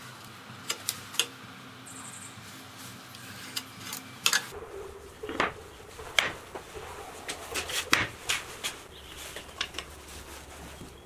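Handling sounds on a workbench: scattered sharp knocks and taps as flat wooden blanks and a pencil are picked up and set down, with some rubbing of paper.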